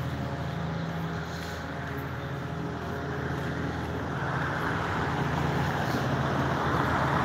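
Cars passing on a street, their tyre and engine noise swelling in the second half, over a steady low hum.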